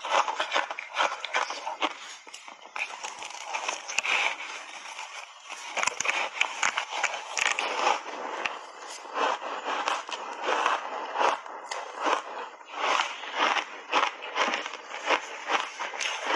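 Refrozen ice chunks coated in matcha milk powder being bitten and chewed, close to a lapel microphone: a dense, irregular run of sharp crunches and crackles.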